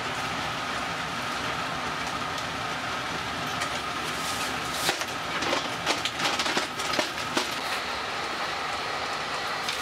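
Sleeper express train running, heard from inside the carriage at the gangway as a steady rumble and hiss. A cluster of sharp clicks and knocks comes about four to seven seconds in.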